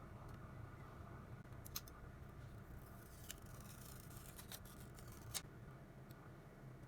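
Near silence with a few faint, sharp clicks, about four, from small repair tools and phone parts being handled; the loudest comes about three quarters of the way in.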